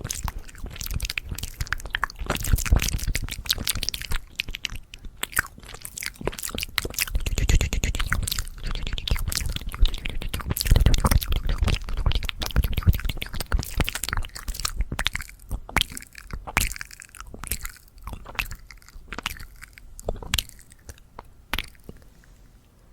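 Fast ASMR mouth sounds close to the microphone: rapid wet clicks, smacks and tongue pops. They come densely at first and grow sparser over the last several seconds.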